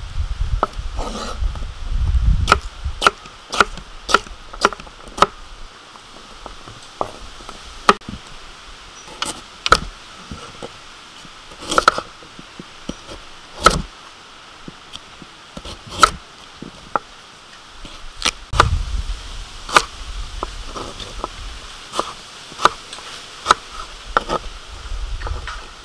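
Kitchen knife cutting firm potato and carrot on a wooden cutting board: sharp knocks of the blade on the board at irregular intervals, sometimes in quick runs, with a low rumble now and then.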